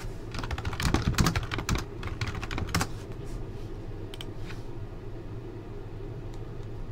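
Computer keyboard keys clicking in quick runs for the first few seconds, then a few scattered clicks, over a low steady hum.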